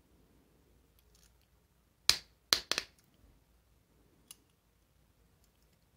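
Sharp metallic clicks from a two-jaw bearing puller working on a keyless drill chuck as its forcing screw is turned against the retaining collet: three clicks close together about two seconds in, and a fainter one a couple of seconds later.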